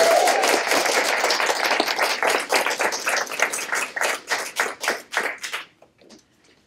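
Small audience applauding: a dense patter of clapping that thins out to scattered separate claps and dies away a little before the end.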